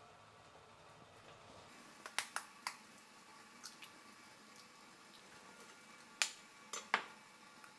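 Eggs tapped and cracked against the rim of a glass bowl: a quick run of sharp cracks about two seconds in, and another, louder run about six seconds in.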